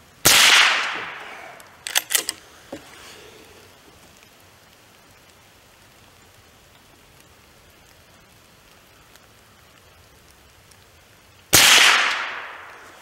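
Two shots from an FN Browning Trombone .22 pump-action rifle, about eleven seconds apart, each ringing out and fading over about a second. A few sharp clicks follow the first shot about two seconds in, as the pump action is worked to chamber the next round.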